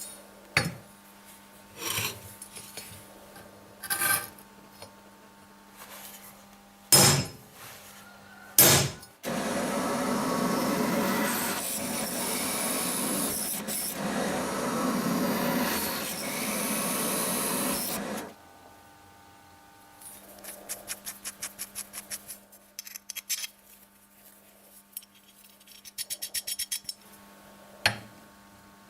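Workshop hand-tool work on metal parts. Several separate knocks come first, then about nine seconds of continuous loud scraping like filing or rasping. Two short runs of quick clicks follow near the end.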